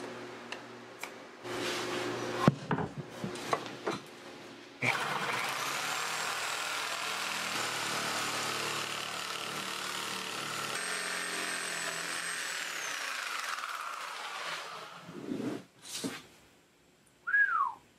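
Clatter and knocks of a corded Milwaukee Sawzall reciprocating saw being handled and lifted from its plastic case, then the saw running steadily for about ten seconds as it resaws a thick board lengthwise, stopping about fifteen seconds in.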